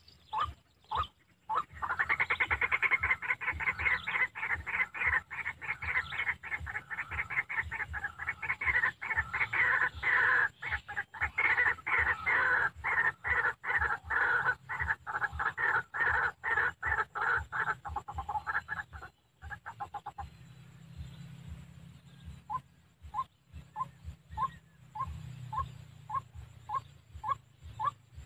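White-breasted waterhen calling: a loud, fast chattering run of croaking notes, then after a short lull a slower, even series of single notes at about two a second.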